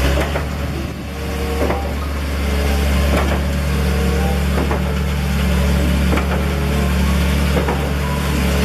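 Concrete mixer truck's diesel engine running steadily, with a few short knocks.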